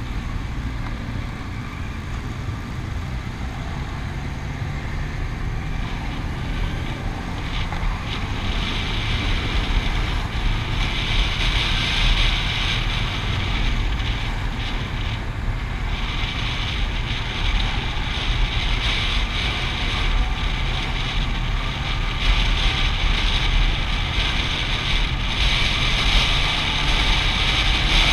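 Steady vehicle engine and road rumble with wind buffeting the microphone; an engine note rises near the end.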